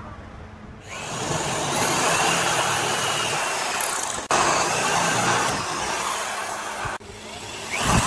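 A cordless drill boring into a pine board with a twist bit, starting about a second in: the motor whines over the steady grinding of the bit through the wood. The sound breaks off abruptly twice, and the drill spins back up with a rising whine near the end.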